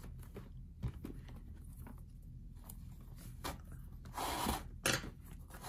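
Quarter-inch leather lace being threaded through a lacing hole in a baseball glove's web: light rubbing and small clicks, then about four seconds in a longer scraping drag of the lace pulled through the leather, followed by a sharp tick.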